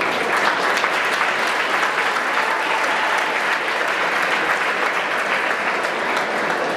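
A large audience applauding steadily, a dense patter of many hands clapping.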